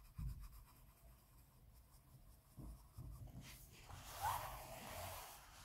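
Derwent Coloursoft coloured pencil shading lightly on paper, a soft scratchy hiss of strokes that is faint at first and grows plainer about three and a half seconds in.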